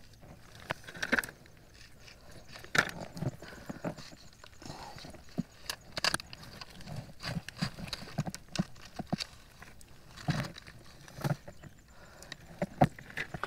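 Irregular knocks, thuds and scrapes of someone moving on foot through mud and tangled roots and sticks, with some sloshing.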